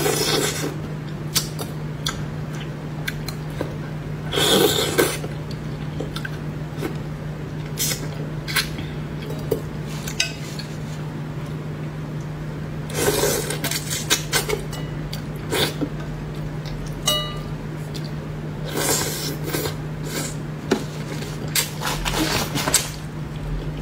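A person eating spicy braised fish with chopsticks: short clicks of chopsticks against the plate and fish bones, and several louder bursts of sucking and slurping as fish is pulled off the bones at the lips. A steady low hum runs underneath.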